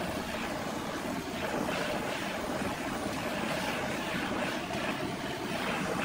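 Homemade wood lathe running steadily while a handheld gas torch flames the spinning wooden bowl blank: a continuous, even drone with a hissing edge.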